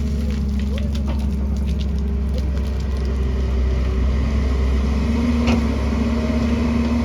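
Excavator's diesel engine running steadily, with scattered light clicks and one sharper knock about five and a half seconds in; the engine note gets stronger from about five seconds in.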